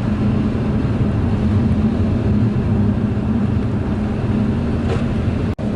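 Steady engine and road drone heard from inside a moving car, with a constant low hum. The sound drops out for an instant near the end.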